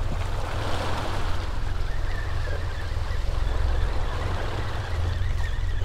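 Seawater sloshing and lapping against the boat's hull and the oil rig's pilings, a steady noisy wash over a constant low rumble.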